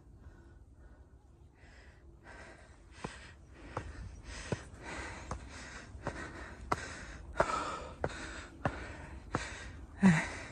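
Heavy panting of a hiker climbing stone steps, out of breath from the steep ascent, with a footfall on the steps about every 0.7 s. It starts about two seconds in and gets louder, ending in a short voiced gasp.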